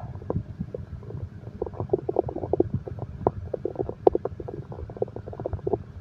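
Human stomach growling: a low rumble with a dense, irregular run of short gurgles and bubbling pops.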